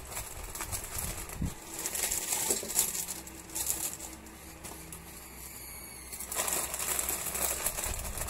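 Plastic instant-noodle packets crinkling and rustling as they are handled in the hands. The crinkling eases for a couple of seconds in the middle, then picks up again.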